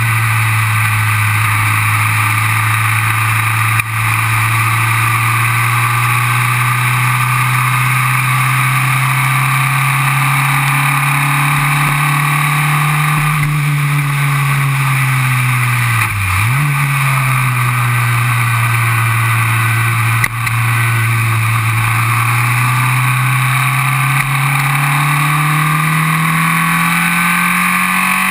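Formula Vee race car's 1200 cc air-cooled Volkswagen flat-four engine, heard from the cockpit, pulling hard at racing speed. Its pitch climbs slowly, drops sharply and picks up again about halfway through, then climbs again near the end.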